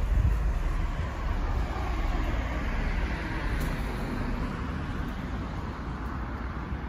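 Steady city street traffic noise: a continuous wash of passing vehicles with a deep low rumble, a little louder in the first couple of seconds.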